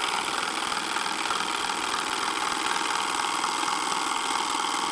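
Hand-built model solenoid engine running steadily at speed: the coil pulls the plunger each stroke to turn a small flywheel, a microswitch switching the coil, giving an even, continuous mechanical chatter.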